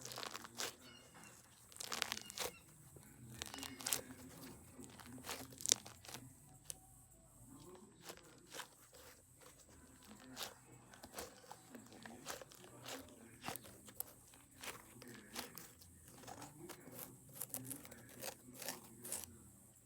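Wax coating on a foam squishy toy cracking as the squishy is squeezed: many small, irregular crackles and crunches.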